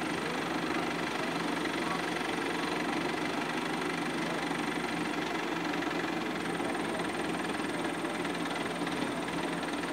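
Diesel engine of an ACE pick-and-carry hydra crane running steadily.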